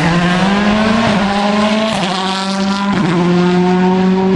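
Rally car's engine accelerating hard past: its note rises, then drops sharply at gear changes about two and three seconds in.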